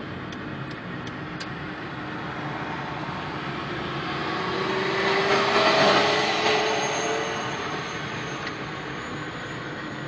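Road and engine noise heard from inside a moving car, swelling to its loudest about halfway through and easing off again, with an engine tone rising in pitch as it swells.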